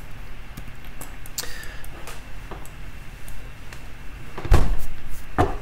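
A dull, heavy thump about four and a half seconds in, followed just under a second later by a sharper knock, over faint scattered clicks.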